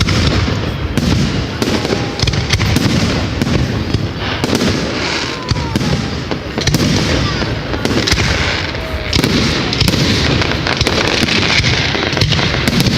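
Fireworks going off in a dense, continuous barrage of crackling, popping and bangs, with a few thin whistles gliding through it.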